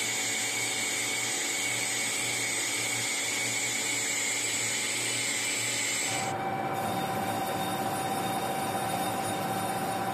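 TOS SUI metal lathe running with a large metal disc turning in the chuck: a steady machining noise with a high-pitched whine. About six seconds in, the whine stops and a lower steady tone carries on.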